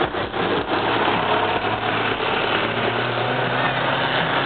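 Off-road 4x4 vehicle's engine running with a steady low hum as it works through a dirt course.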